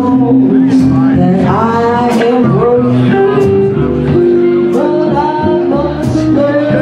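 Live band playing a slow number: electric guitar lines with bent notes over upright bass, drum kit and electric keyboard.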